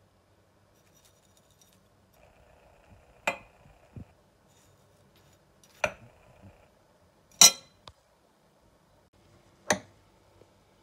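Glass mixing bowls clinking, four sharp clinks a couple of seconds apart, the third the loudest, with a softer knock shortly after the first, while Oreo crumbs are handled in the bowls.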